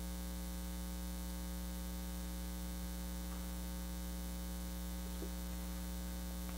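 Steady electrical mains hum, a low buzz made of several steady tones, with nothing else heard over it.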